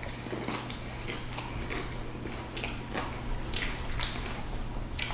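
Close-up chewing of a fried chicken BLT sandwich, with soft, irregular crunches of bites.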